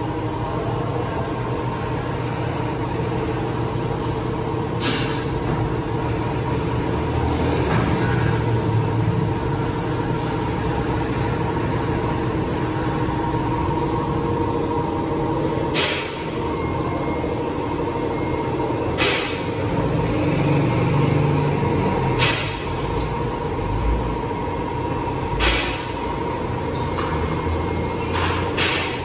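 Workshop hum with a few steady tones under a low rumble, broken about seven times by short sharp metallic clicks and knocks as a mechanic works around a car on an alignment lift, fitting wheel clamps and targets.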